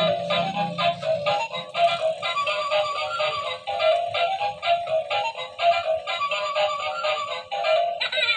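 Music: a repeating electronic tune with a synthetic singing voice, bright and thin-sounding.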